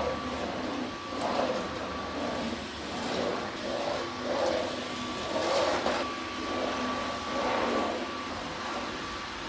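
Vacuum cleaner running, its noise swelling and easing about once a second.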